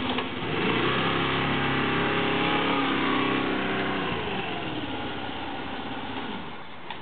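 2007 SYM HD 200 scooter's single-cylinder engine pulling away: it rises in pitch about half a second in, runs steady for a few seconds, then drops and fades as the scooter moves off.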